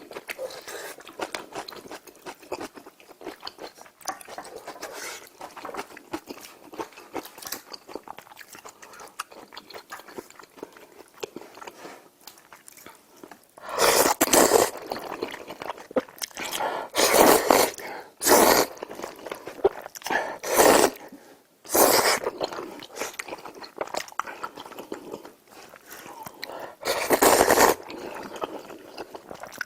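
Close-miked eating of a Korean meal of kimchi stew with glass noodles, rice and side dishes: steady chewing with small wet mouth clicks, then six loud, second-long eating noises from about halfway through.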